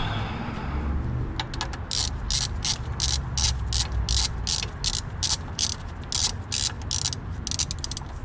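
Hand ratchet wrench clicking steadily, about four clicks a second, as it runs a water pump bolt in. The clicking starts about a second and a half in.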